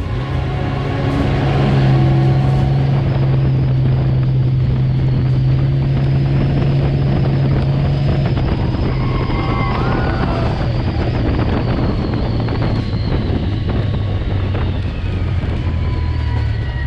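Race truck's engine running at a steady speed in a loud, even drone, which drops lower near the end.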